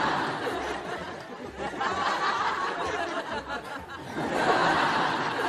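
A group of people laughing together in waves, swelling about three times.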